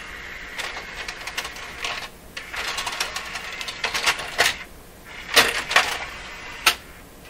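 Sony HCD-CP300's three-disc CD changer mechanism running, with a rattling whir and a series of sharp clicks as discs are loaded.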